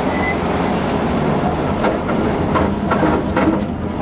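Subaru Impreza rally car's flat-four engine running hard, heard from inside the cabin over road and tyre noise. From about two seconds in, a run of sharp cracks and pops sounds over it as the car comes up to a junction.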